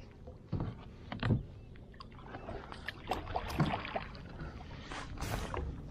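Irregular knocks and splashes from handling on a plastic fishing kayak, with two louder thumps in the first second and a half.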